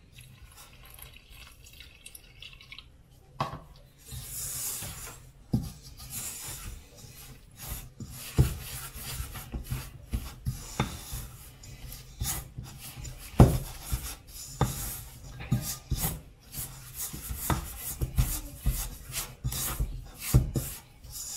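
A wooden spoon stirring thick flour-and-egg dough in a stainless steel mixing bowl, scraping and knocking against the bowl in irregular strokes. At the start a thin stream of water is poured in from a measuring cup.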